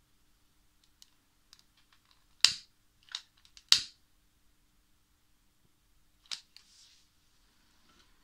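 A few sharp metallic clicks and knocks as metal tools are handled around a small model steam engine. The two loudest come about two and a half seconds in and again just over a second later, and a short faint hiss follows a smaller click near the end.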